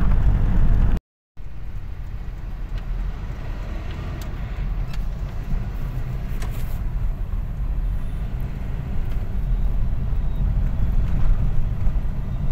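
Car driving, heard from inside the cabin: a steady low rumble of engine and road noise. About a second in the sound drops out for a moment, then resumes a little quieter.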